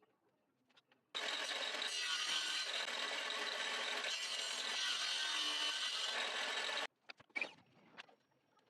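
A workshop power tool working on material, making a steady, harsh noise that starts abruptly about a second in and cuts off suddenly nearly six seconds later. A few short clicks and knocks follow.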